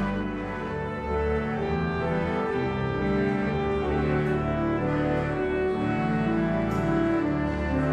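Pipe organ playing slow sacred music: held chords that change every half second or so over a moving bass line.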